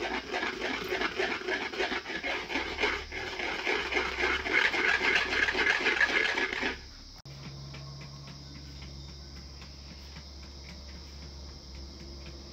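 Cooked stinging nettle being churned into a paste in a black iron karahi with a stirring stick: fast, regular wet scraping strokes, several a second. About seven seconds in, the strokes cut off and a quieter stretch follows, with the faint crackle of a wood fire.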